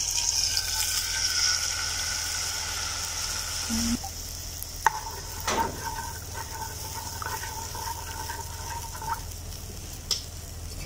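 Cow's milk sizzling loudly as it hits hot ghee in an iron kadai, the hiss slowly easing off as it is stirred. A wooden spatula scrapes and knocks against the pan a few times around the middle.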